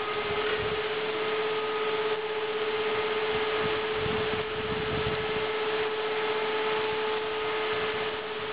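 A siren holds one steady note over an even hiss of heavy rain.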